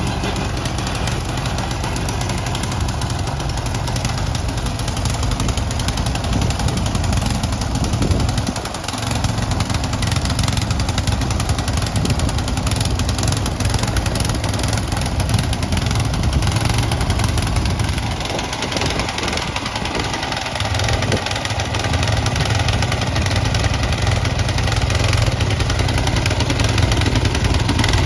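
Snow blower's engine running steadily as it clears snow, easing off briefly about nine seconds in and again for a couple of seconds past the middle.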